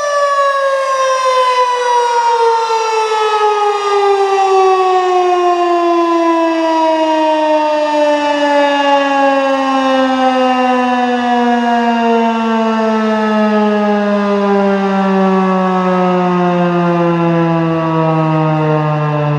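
Federal Signal 2001 electromechanical outdoor warning siren winding down after its steady Alert tone has been cut off, its pitch falling slowly and evenly from a high wail to a low moan.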